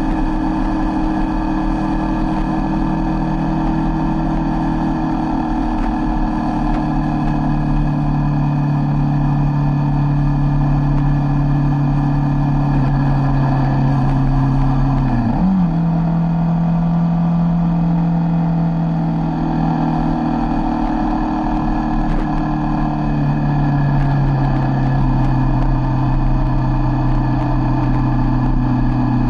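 Motorcycle engine running at road speed, heard from a camera mounted on the bike. Its note holds steady, dips sharply and jumps back up in pitch about halfway through, and steps down a little twice later on.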